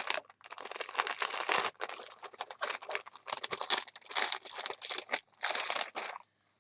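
Packaging crinkling and rustling in irregular handfuls as a wrapped item is unwrapped and handled, stopping shortly before the end.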